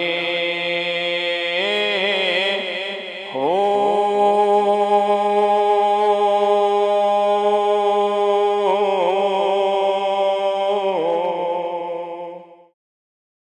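A man's voice chanting a Sufi kalam in long, drawn-out held notes. It slides up to a higher note about three seconds in, wavers in places, and fades out shortly before the end.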